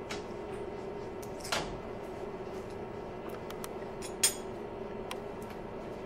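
A spoon clinking against a small bowl while an avocado-and-honey face mask is mixed: a few light taps and two sharper clinks, one about a second and a half in and the loudest about four seconds in. A steady low hum runs underneath.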